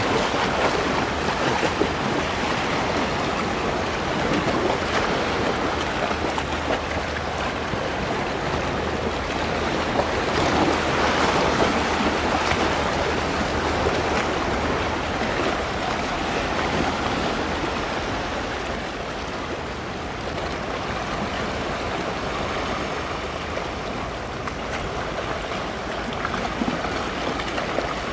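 Sea waves washing and wind buffeting the microphone, a steady rushing noise that swells a little around the middle. A faint low steady hum lies underneath.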